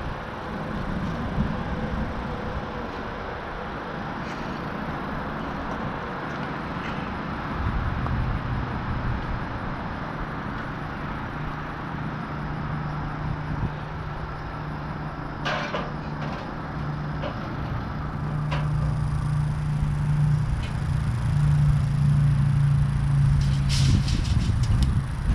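An engine running steadily under a low rumbling noise, its hum coming in about a third of the way through and growing louder near the end, with a few scattered knocks.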